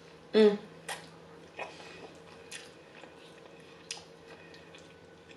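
Close-miked eating of a mouthful of noodles: sharp wet mouth clicks and chewing sounds a second or so apart, with a short hummed vocal sound about half a second in. A fork clicks in the plastic takeout tray near the end, over a faint steady hum.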